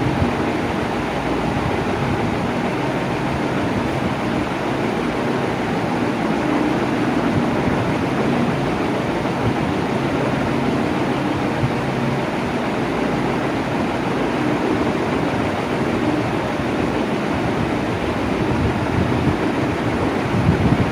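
Electric fan running steadily: an even rush of moving air with a faint low motor hum, holding at a constant speed.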